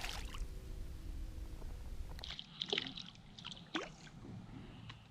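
Water sloshing and splashing against a small fishing boat, with a few short splashes in the middle. A low rumble underneath drops away about two seconds in.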